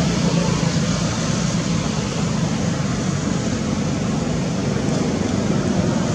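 A steady, even rushing noise with no distinct events in it.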